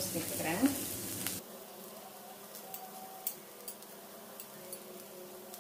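Faint sizzle of chopped vegetables frying on a low flame in a cast-iron kadai, with a few small scattered pops. It drops quieter about a second and a half in.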